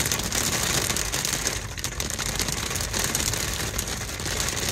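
Hail and rain pelting a car's windshield and roof, heard from inside the car as a dense, steady patter of many small hits.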